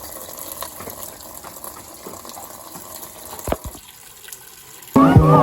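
Water running in to fill a washing machine, a steady hiss, with a couple of short knocks about three and a half seconds in. Loud music cuts in just before the end.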